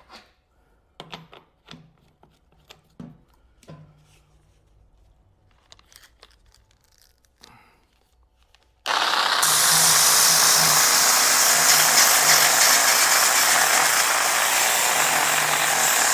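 Makita angle grinder: a few light clicks and knocks as it is handled, then about nine seconds in the motor starts and runs loud and steady. This is a test run after a gear replacement, on a motor the owner suspects is burnt up.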